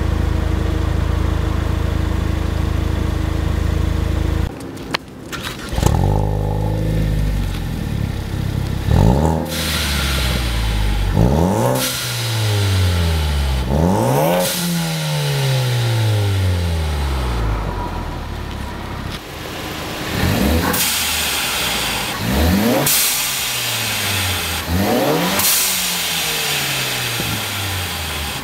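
Ford Focus ST's turbocharged 2.0-litre four-cylinder running through a Milltek cat-back exhaust. A steady run cuts off about four seconds in, then the engine starts and settles. It is then revved six times, each rev rising sharply and dropping back to idle.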